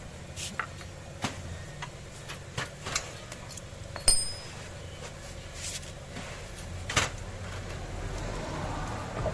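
Metal bicycle parts and tools being handled: scattered clicks and taps, with a sharp ringing metal clink about four seconds in and a heavier knock near seven seconds.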